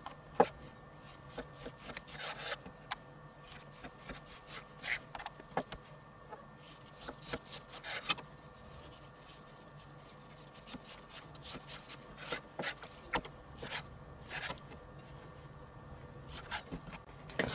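Kitchen knife slicing raw pork neck on a wooden cutting board: faint scraping strokes of the blade through the meat, with scattered sharp taps of the knife and meat against the board.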